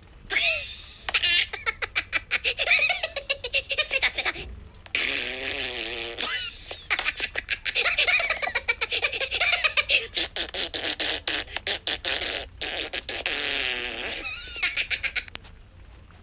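Cartoon fart noises and the Minions' high-pitched laughter and giggling from an animated Minions clip, coming in dense runs with a couple of brief breaks.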